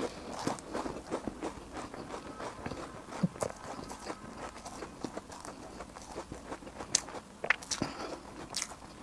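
Close-miked eating sounds: a person chewing and biting food, with soft, irregular mouth clicks throughout and a few sharper clicks between about seven and eight and a half seconds in.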